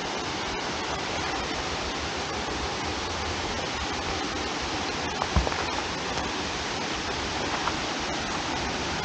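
Steady rushing of a waterfall and creek below, an even noise without gusts. A single low thump about five seconds in.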